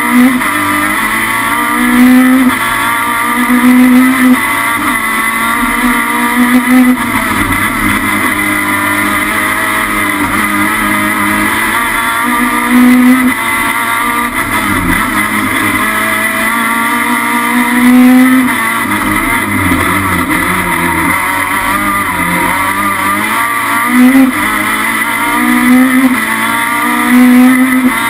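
Peugeot 306 Maxi Kit-Car's naturally aspirated 2.0-litre four-cylinder racing engine with individual throttle bodies, heard from inside the cabin, revving hard again and again: its pitch climbs high and drops back at each gear change, with louder peaks several times.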